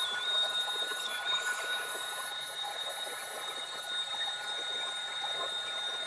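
Keelat 20-volt cordless vacuum cleaner and blower motor running steadily: an even hiss with a thin high whine on top.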